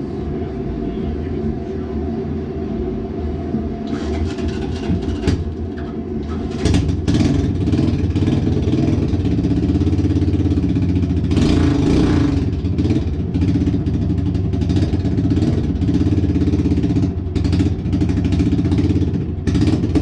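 A 1984 Honda Big Red 200E three-wheeler's single-cylinder four-stroke engine running, getting louder about seven seconds in as the throttle is opened, then revving up and dropping back.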